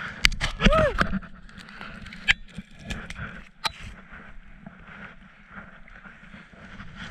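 Skis swishing and scraping through deep powder snow while fir branches brush and knock against the head-mounted camera, with several sharp knocks in the first four seconds. After that the skis settle into a steadier hiss.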